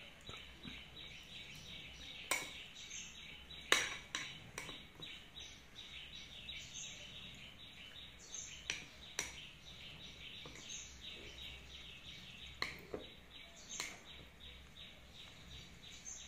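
A metal spoon clinks sharply against a ceramic bowl several times as food is scooped. Behind it, a steady rapid chirping runs throughout.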